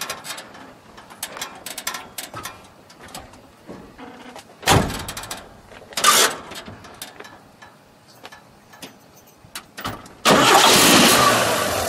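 1957 Chevrolet 3100's 235 cubic-inch inline six starting about ten seconds in and running on steadily. Before that there are light clicks and two loud thumps about a second and a half apart.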